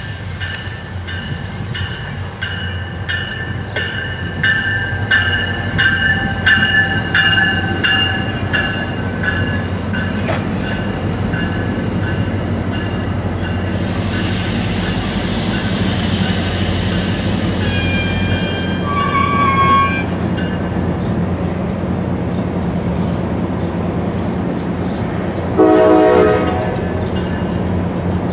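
MARC bi-level commuter train passing with a steady low rumble: a bell rings about twice a second during the approach, then the coaches rush by with a few short wheel squeals, and a brief horn note sounds about a second long near the end.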